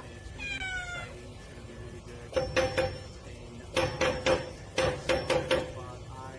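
A cat meows once, falling in pitch, about half a second in. Three quick runs of short, sharp sounds follow later.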